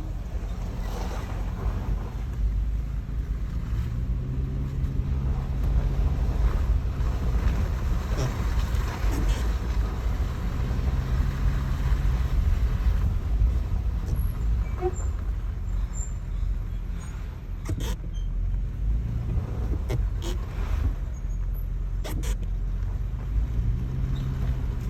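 Nissan Xterra running with a steady low rumble and a low hum that rises now and then. A few brief faint high squeaks come about halfway through, and several sharp clicks follow later. The owner cannot place the squeaks, since the brakes and rotors are only five months old.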